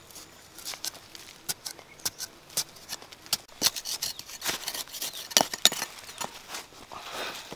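Large knife blade digging and scraping in dry, stony soil to loosen the earth around a cassava root, with loose dirt scraped away by hand. It comes as an irregular run of sharp scrapes and ticks, loudest a little past halfway.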